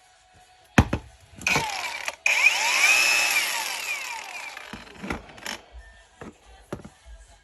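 Cordless 36 V angle grinder: a couple of clicks, a short run, then it is switched on again and runs loudly before fading as the disc spins down. A few handling clicks and knocks follow.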